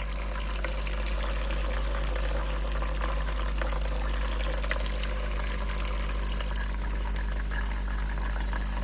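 Spidem Divina Deluxe espresso machine's pump running steadily with a low hum while fresh water runs out through the hot water nozzle, rinsing the system after descaling.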